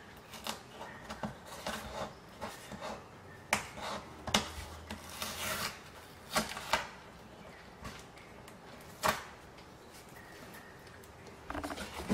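Packing tape being scraped with a small cutter and peeled off corrugated cardboard: scratchy rubbing broken by sharp crackles and snaps, the loudest about three and a half, four and a half and nine seconds in.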